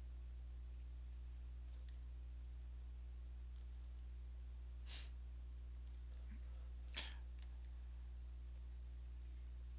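Steady low electrical hum with a few faint, scattered clicks from someone working a computer, the loudest about seven seconds in.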